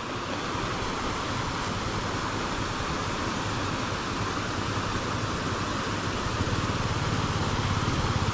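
Motorcycle engine running over a steady rushing hiss at a stream crossing; the engine's low pulsing grows louder about six seconds in.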